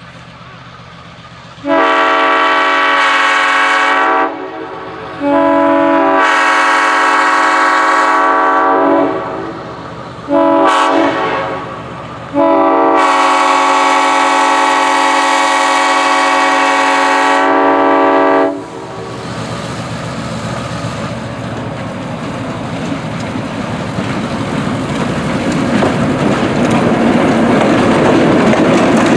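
Train air horn sounding several notes at once in four blasts, long, long, short, long: the standard grade-crossing signal. The rumble of the train rolling on the rails follows, growing steadily louder.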